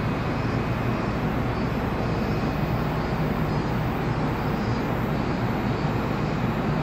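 Steady mechanical hum and whir of a Shonan Monorail suspended car standing at the station platform, its on-board equipment running.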